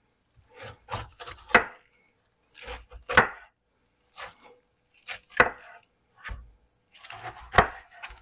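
A knife cutting up a pineapple on a cutting board: about five sharp chops down onto the board, with sawing and scraping between them.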